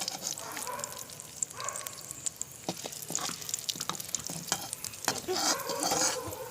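Green chillies sizzling in hot oil in a frying pan, with repeated clinks and scrapes of a spoon against the pan as they are scooped out.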